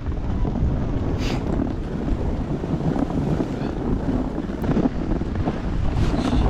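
Wind buffeting the microphone on a ski descent, a steady low rumble, with a few brief hissing scrapes of skis on snow, one about a second in and one near the end.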